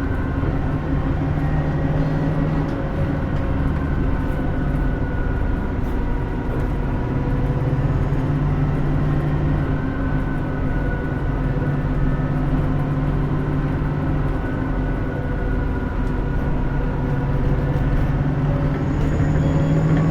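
Hino Rainbow II route bus driving, heard from inside the cabin: its diesel engine runs steadily with small rises and falls in pitch over road noise. A faint high whistle comes in near the end.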